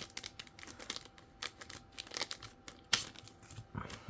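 Crinkling of paper and plastic with small taps and clicks as a sheet of adhesive foam dimensionals is got out and handled on a craft desk, with one sharper click about three seconds in.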